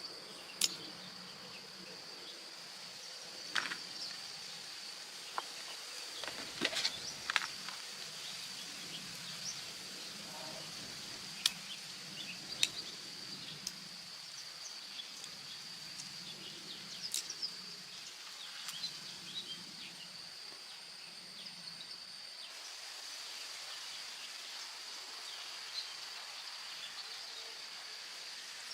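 A steady high-pitched drone, with scattered light clicks and taps.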